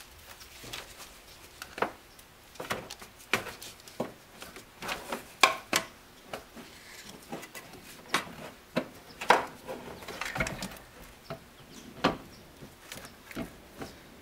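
Irregular clicks, knocks and clunks of a new vacuum brake booster being handled and worked into place against a truck's firewall, a few knocks sharper than the rest.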